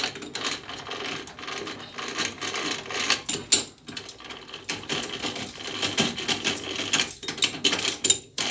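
Three-jaw lathe chuck being wound closed with its chuck key: the scroll turning and the steel jaws sliding in with a rapid, uneven run of metallic clicks and rattles.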